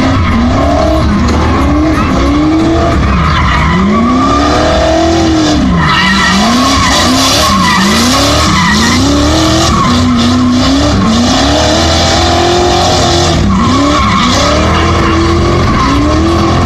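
A car doing smoky donuts: its engine revs up and drops back over and over, about once a second, while the spinning rear tires squeal continuously.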